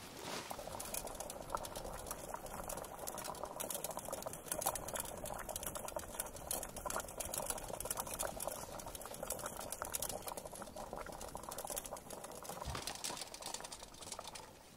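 Water boiling hard in a steel pot hung over a campfire: a dense, steady bubbling with fine crackles.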